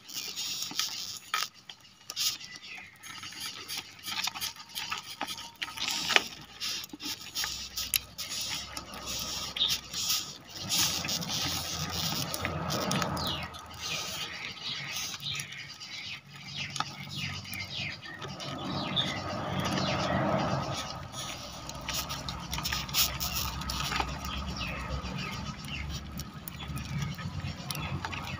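Rhinoceros beetles scratching and squeaking as they clamber over one another in the hand, a run of many small irregular clicks and scrapes.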